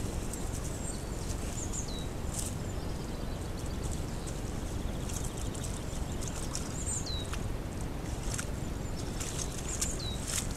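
Wild boar rooting and wading in a muddy puddle, giving scattered soft crackles and splashes over a steady low hiss of the camera trap's microphone. A small bird gives short high chirps that fall in pitch three times.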